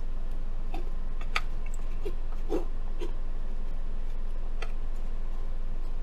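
Steady low rumble of a moving car heard from inside the cabin, with a few soft clicks and small eating noises scattered through it.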